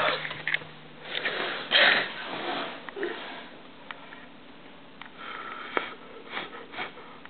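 Breathy sniffs and exhales close to the microphone, several in a row, with a few light clicks.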